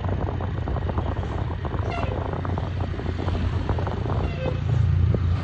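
Roadside traffic noise dominated by a large diesel bus engine's low rumble, growing louder about four and a half seconds in as it draws near.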